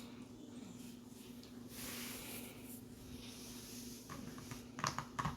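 Faint handling of a Tokyo Marui M9 gas airsoft pistol and its metal magazine: a brief soft hiss about two seconds in, then a few sharp clicks near the end.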